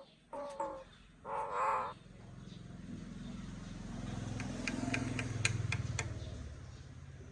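Common myna calling: a few short, repeated pitched calls in the first second, then one louder, harsh call about a second and a half in. After that a low rumble swells and fades, with a few sharp clicks near the middle.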